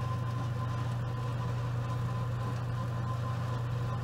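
Oven running while the pot pie bakes: a steady low hum with a thin, faint high tone above it.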